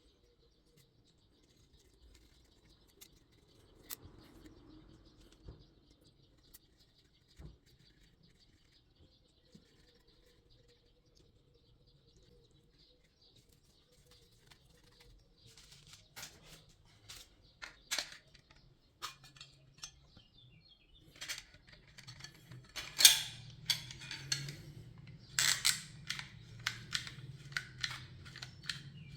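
Small metal parts clicking and clattering, sparse at first and then busy in the second half, with two louder clanks.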